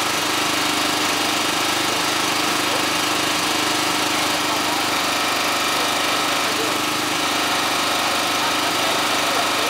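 Small engine running steadily at a constant speed, the power unit that drives the firefighters' hydraulic rescue tools during a car extrication.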